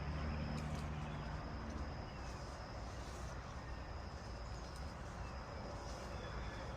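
A cow lowing briefly in the first second and a half: one low, steady-pitched call, over a steady low outdoor rumble and a thin high drone.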